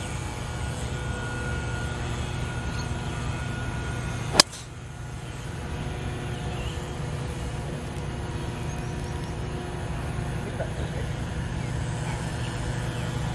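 Golf driver striking a ball off the tee: one sharp crack about four seconds in, over a steady low hum.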